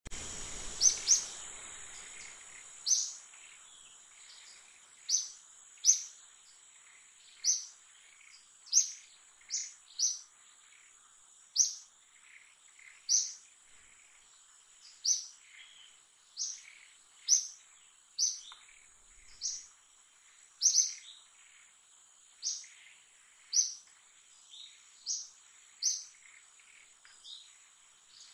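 A bird chirping over and over: short, sharp high calls about once a second at uneven spacing, over a steady high-pitched insect drone.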